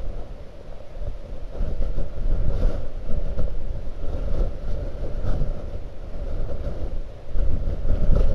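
Blizzard wind buffeting the microphone in uneven gusts, a low rumble that swells about two seconds in and again near the end.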